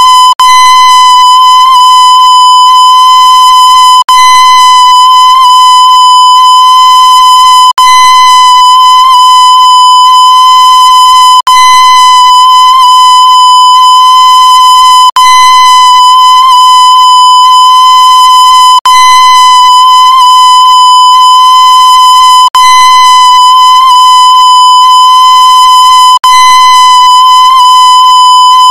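A loud, steady electronic beep at one fixed pitch, harsh and buzzy with distortion, dropping out for an instant about every four seconds as the same tone repeats.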